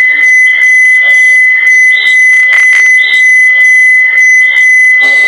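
Loud, steady, high-pitched squeal from a Samsung Galaxy phone running the Echovox echo app, the phone reacting to the app's echo. Underneath, the app's chopped, echoing sound fragments pulse about twice a second.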